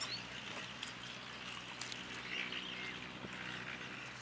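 Outdoor park ambience with a few faint bird chirps and soft scattered clicks over a low steady hum.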